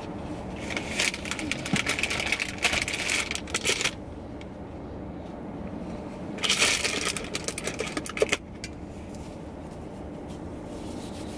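Crinkling and rustling as things are handled in two stretches: about three seconds starting near the beginning, then about two seconds past the middle, the second ending in a sharp click.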